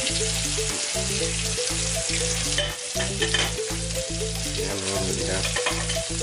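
Salmon fillets frying in a small saucepan: a steady sizzle of hot fat, with a melody and bass line playing underneath.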